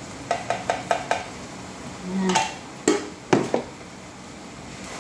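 A spoon tapping about five times in quick succession against a spice container, knocking off coriander powder, then a clatter and two sharp knocks as kitchen utensils and containers are put down.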